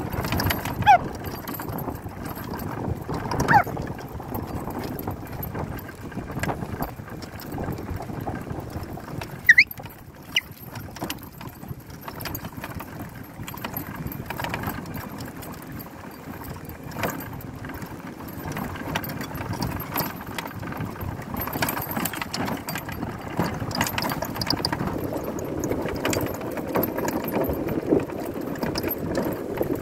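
An engine running steadily, with a few short high squeaks about one, three and a half, and nine and a half seconds in.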